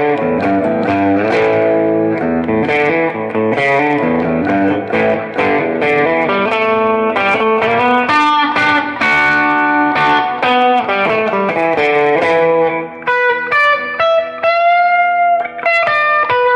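Guitar music: a busy run of quick plucked notes and chords, giving way near the end to slower single notes that are held out.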